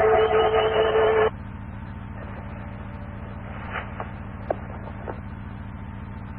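Open two-way radio channel with no one talking, heard through a scanner feed. A loud, steady mix of held tones and static cuts down about a second in to a quieter steady hum, with a few faint clicks.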